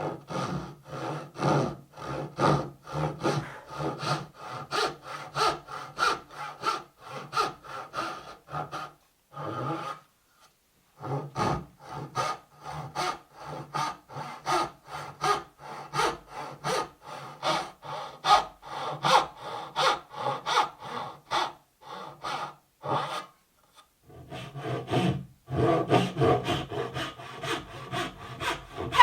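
Hand saw cutting through wood in quick, even back-and-forth strokes, about two a second, with two short pauses before the sawing resumes.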